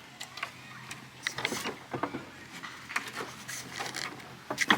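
A few scattered light knocks and clicks with faint scraping between them, from hand work on the gate hardware as a piece is lined up with its old holes.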